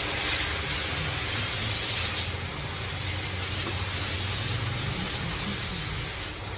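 A steady hiss, like air or spray under pressure, that cuts off sharply near the end.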